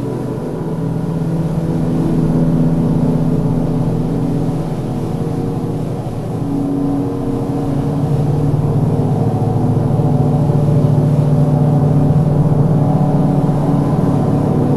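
Space ambient music: layered low drones of sustained tones that slowly swell and shift, with no beat.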